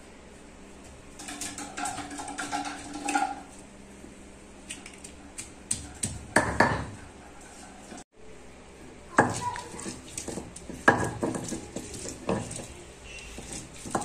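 Stone roller (batta) pressed, rolled and knocked on a flat stone grinding slab (sil), crushing raw mango slices into chutney: irregular stone-on-stone knocks and gritty scraping, with a few louder strikes.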